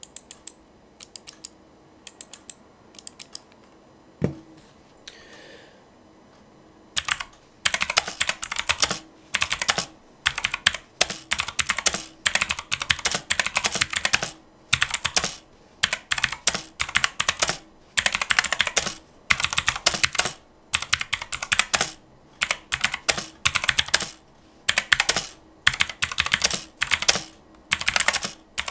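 Typing on a full-size mechanical keyboard with clicky Otemu Blue switches and ABS keycaps, a sharp click on every keystroke. A few scattered keystrokes come first, then steady, fast typing in runs from about seven seconds in.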